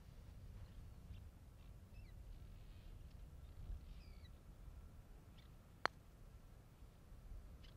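A single sharp click of a putter striking a golf ball, about six seconds in, against near silence.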